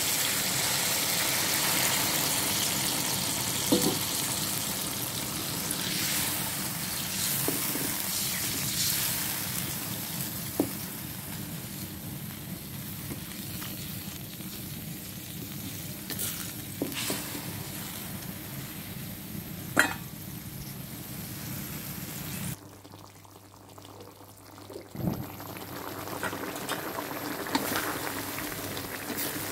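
Water poured into a hot wok of browned chicken sizzles and then bubbles as it heats, while a spatula stirs and now and then knocks against the wok's side. The sizzle is loudest at the start and slowly dies down.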